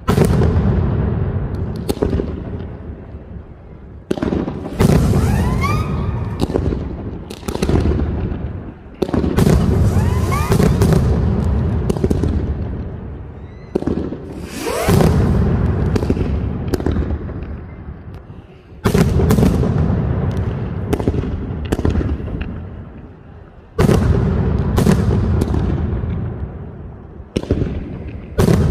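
Mascletà by Pirotecnia Nadal-Martí: dense volleys of loud firecracker bangs and aerial booms. The volleys come in waves every few seconds, each surging then fading. Rising whistles climb through the bangs twice, near 5 s and 10 s.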